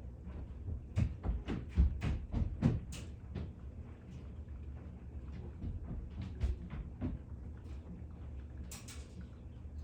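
Light clicks and taps of tools and wires being handled while soldering: a quick run of about a dozen in the first few seconds, then a few scattered ones and a brief rustle near the end, over a steady low hum.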